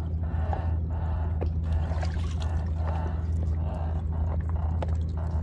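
Boat engine running with a steady low drone, with water sloshing and pouring in repeated splashes.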